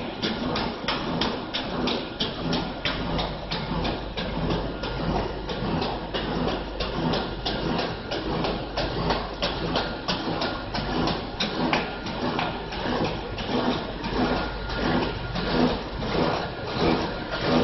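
An EPE foam net extrusion line running, with a steady low hum under an even, rapid clicking at about three clicks a second.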